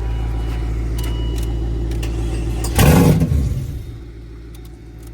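A car engine running steadily, then briefly revving loudly about three seconds in before the engine sound dies away.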